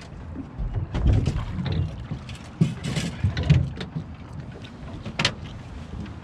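Wind rumbling on the microphone, with scattered knocks and clicks of the rod and landing net being handled on the boat; one sharp click about five seconds in.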